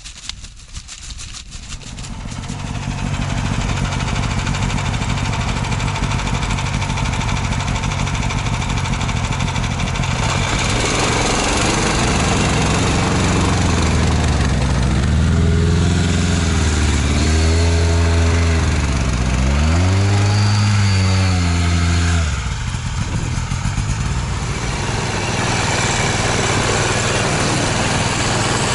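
Snowmobile engine running while pulling along a snowy trail, getting louder about two seconds in. Between about 12 and 22 seconds in the engine speed rises and falls several times, then it settles back to a steady run.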